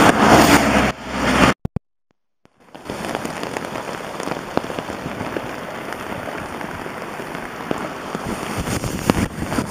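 Rain pattering on a silnylon rain poncho, heard from underneath it: a steady hiss dotted with many small drop ticks. It starts after a brief dropout about two seconds in; before that, about a second and a half of wind and riding noise.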